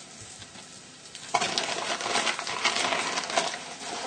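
Oil sizzling in a hot pan on high heat, with many sharp crackles, starting abruptly about a second and a half in.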